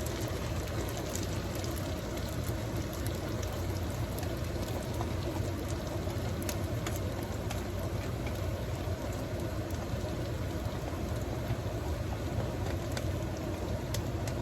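Pan of couscous in hot water and garlic oil simmering on the stove: a steady hiss over a low hum, with scattered faint pops and crackles.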